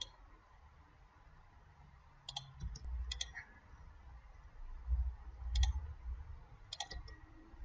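Computer mouse buttons clicking about five times, several as quick double clicks, while points are picked on a drawing, over a low rumble.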